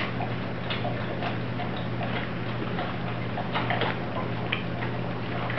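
Doberman puppies, four and a half weeks old, eating and nursing: irregular quick wet clicks of their mouths smacking, lapping and suckling.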